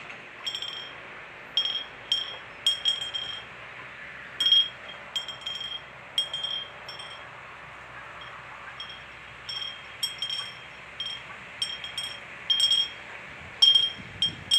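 Homemade bird-scaring bell for a rice paddy ringing with sharp, irregular clinking strikes, each leaving a short high ring, over a steady background hiss.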